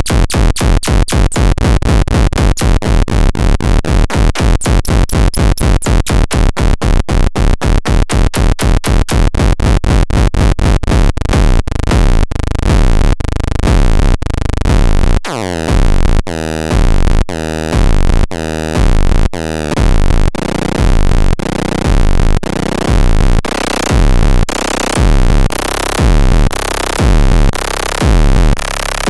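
Minimal techno played from drum machine and synthesizer. It opens with a fast run of drum hits, about five a second, and about twelve seconds in changes to a heavy pulse about once a second, with the deep bass cutting in and out before filling out again near twenty seconds.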